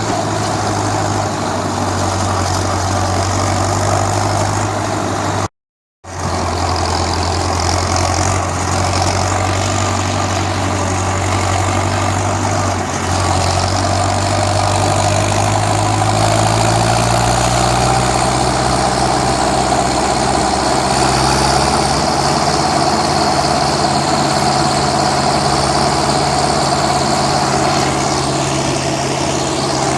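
Steyr 768 tractor's diesel engine running steadily, then its speed rises gradually about two-thirds of the way through and holds at the higher speed. The sound cuts out completely for about half a second around five and a half seconds in.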